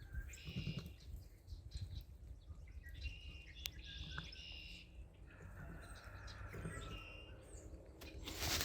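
Songbirds chirping faintly in short phrases over a steady low outdoor rumble, with a brief rustle at the very end.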